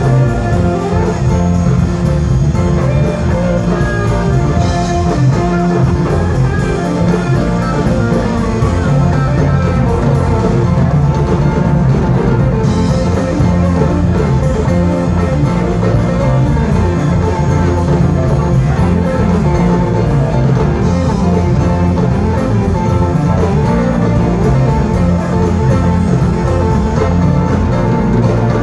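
Live rock band playing an instrumental passage: electric guitars over bass guitar and drum kit, amplified through the stage PA.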